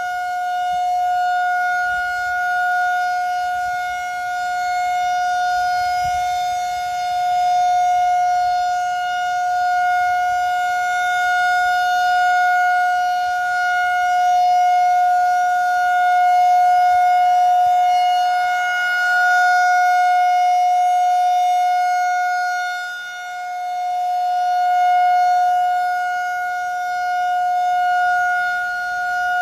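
Federal Signal 2001-SRN DC "Roundback" outdoor warning siren sounding a steady 750 Hz alert tone for its monthly test. The pitch holds level while the volume swells and fades as the siren slowly rotates, with one clear dip about three-quarters of the way through.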